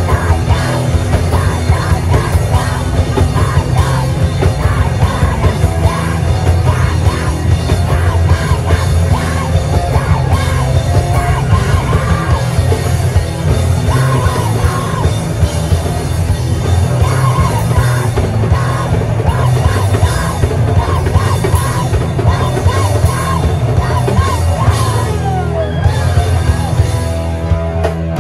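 A loud rock band playing live in the punk style, with yelled vocals over the band, without a break.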